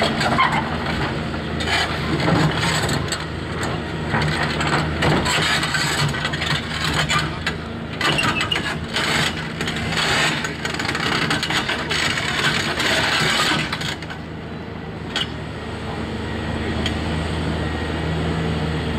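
Heavy diesel construction machinery running steadily, with loud irregular clattering and scraping noise over it that stops about fourteen seconds in, leaving only the engine.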